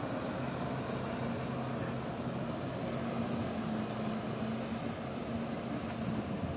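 Steady city street traffic noise, with a low steady engine hum from vehicles running.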